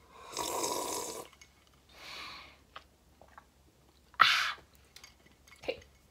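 A person sipping water from a mug, with swallowing and small mouth clicks, then a short, sharp breathy exhale about four seconds in.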